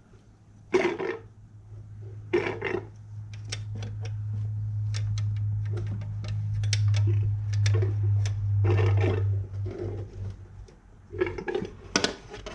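Short clicks, knocks and scraping of hand work on seized frame bolts under a car, over a low steady hum that builds for several seconds and stops about ten seconds in.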